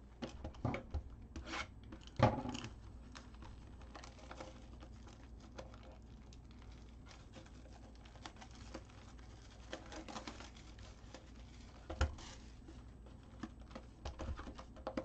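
A cardboard box of Topps Chrome baseball cards being opened by hand and its packs handled: rustling, tearing and light taps, with a sharp knock about two seconds in and another near twelve seconds.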